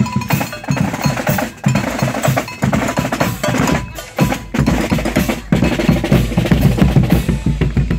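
A schutterij drum section plays a marching cadence on snare drums and a bass drum. The bass drum grows much louder about halfway through as it passes close by.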